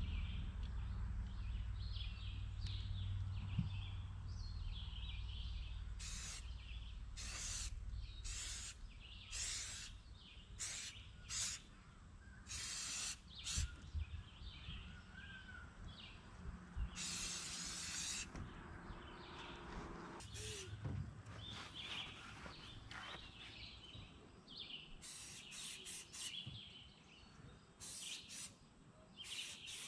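Aerosol spray-paint can hissing in a series of short bursts, about fifteen of them, the longest about a second, as camouflage paint is sprayed over leaves held to an aluminum boat hull as a stencil. Birds chirp faintly in the background.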